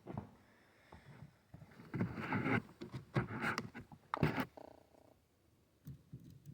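Hands working a chainsaw's exhaust cover and screws back into place: irregular scrapes, rustles and clicks of metal and plastic parts, with a short metallic ring a little before five seconds in.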